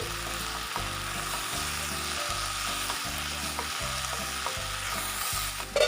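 Boiled black chickpeas with onion and tomato sizzling steadily in a pan as the leftover cooking water boils off and they begin to dry and roast, with a few light taps of the stirring spoon.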